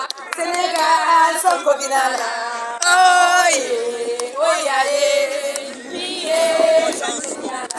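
A group of women singing and chanting together in long held notes, with scattered hand claps.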